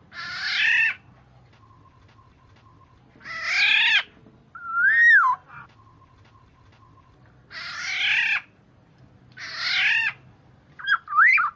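Recorded black-naped oriole (kepudang) calls played as a bird lure: four harsh, nasal, cat-like calls of just under a second each, a few seconds apart. A clear up-and-down whistle comes about five seconds in, and short whistles come near the end.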